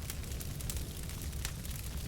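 Wood fire crackling: a steady low rumble of burning, with small sharp pops and crackles scattered irregularly throughout.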